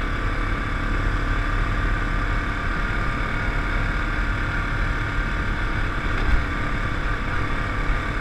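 Yamaha Grizzly 700 ATV's single-cylinder four-stroke engine running steadily at cruising speed.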